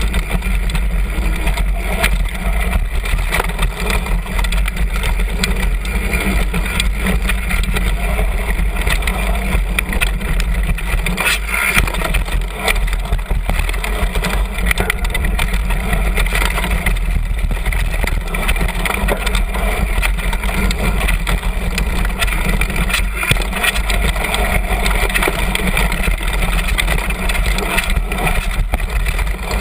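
Continuous rumble and rattle of a downhill mountain bike rolling fast over a dirt trail: knobby tyres on dirt and the frame and fork shaking over bumps, picked up by a camera mounted low on the bike.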